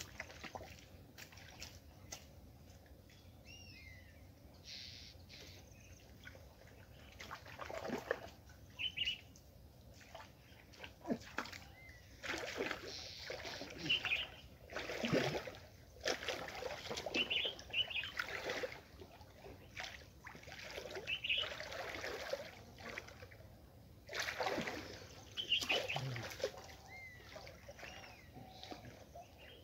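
Muddy water splashing and sloshing in irregular bursts as people grope through a shallow pool by hand for catfish, getting busier from about a quarter of the way in. Short bird chirps repeat every few seconds.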